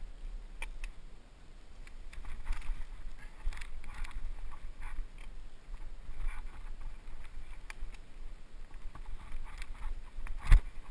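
Mountain bike rolling downhill over a rough, overgrown trail: tyres swishing through grass and the bike rattling over bumps, with wind rumble on the helmet-camera microphone. A sharp knock from a hard bump near the end is the loudest sound.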